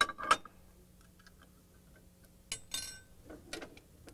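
Sharp metallic clicks and clinks from the steel press bar and anvil of a hand sheet-metal bending tool being set and worked to bend a hem. Two loud clicks open it, then a few faint ticks, and a ringing metal clatter comes near three seconds in.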